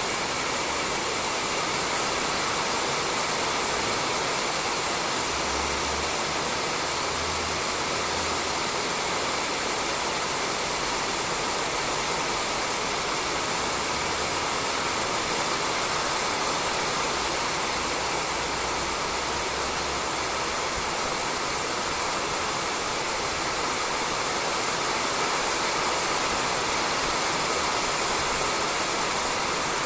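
Steady rain falling on a roof, an even hiss with no break or change.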